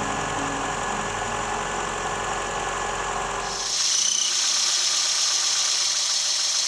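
Eunos Roadster's engine idling with a mechanical whirr and rattle; about four seconds in it cuts off abruptly and a loud, steady high-pitched hiss takes over.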